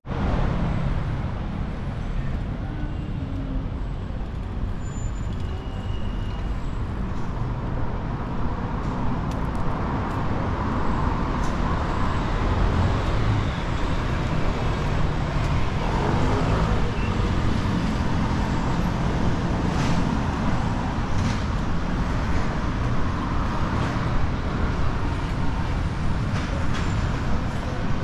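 City street traffic: a steady rumble of passing cars and buses, swelling now and then as vehicles go by.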